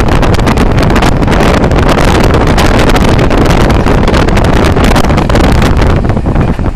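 Loud, gusty wind buffeting the microphone of a camera held out of a moving train's window, over the low rumble of the passenger train running at speed.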